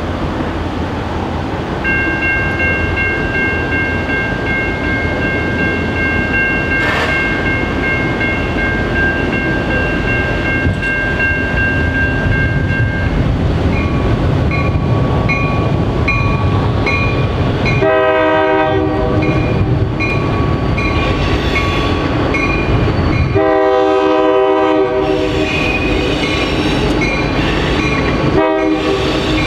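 Two EMD GP39-2 diesel locomotives approaching with a steady low engine rumble, their horn sounding the grade-crossing signal: two long blasts, then a short one near the end. A crossing bell rings rapidly from about halfway through.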